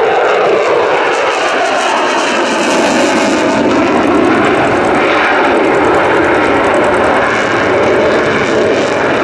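Loud, steady jet noise from a Belgian Air Force F-16's single Pratt & Whitney F100 afterburning turbofan as the fighter flies its display.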